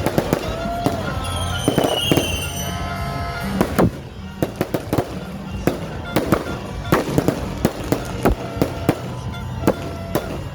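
Fireworks display: repeated bangs and pops at uneven intervals.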